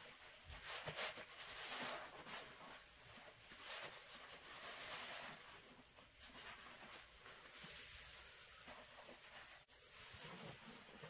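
Gloved hands squeezing a soaked sponge and scooping thick soap suds in a plastic tub: quiet squishing and crackling of foam, coming in several soft bursts.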